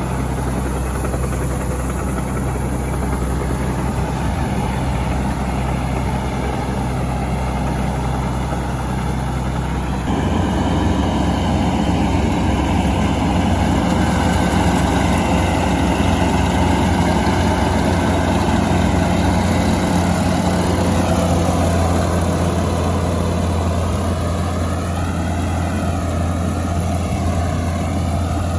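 Heavy diesel engine running steadily. About ten seconds in its note changes and it gets a little louder.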